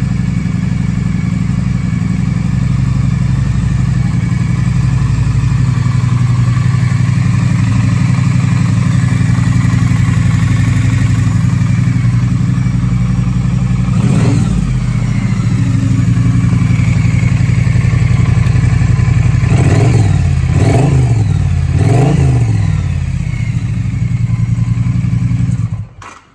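2016 Triumph Street Twin's 900 cc parallel-twin engine idling, with a throttle blip about halfway through and three quick blips of the revs near the end; the engine sound cuts off suddenly just before the end.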